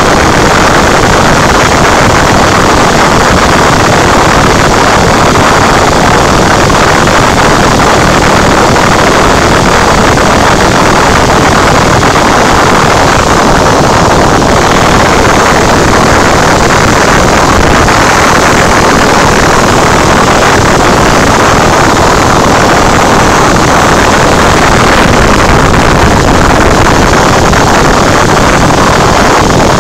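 Cessna 172's piston engine and propeller running steadily in flight, heard from inside the cabin as a loud, unbroken drone.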